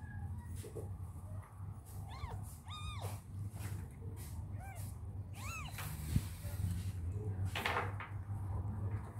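Cat mewing: four short mews, each rising and falling in pitch, spread over a few seconds. A brief rustle follows near the end over a steady low hum.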